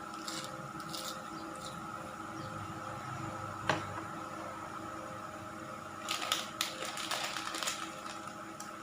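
Scattered light clicks and short wet, squishy handling sounds, with one sharp click in the middle and a busier cluster near the end, over a steady electrical hum.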